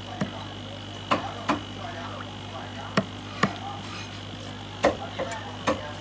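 Knife chopping skinned frogs on a wooden chopping block: about eight sharp knocks, coming singly and in quick pairs, over a steady low hum.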